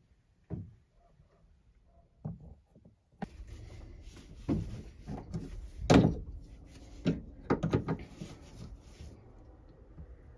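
A series of sharp metal clanks and knocks from tongue-and-groove pliers gripping and working a rusted nut on an old engine mount. The loudest clank comes about six seconds in, with a few fainter knocks before it.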